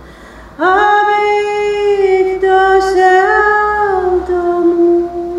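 A woman singing unaccompanied: after a brief pause, a long held note swoops up about half a second in and is sustained, shifting slightly in pitch.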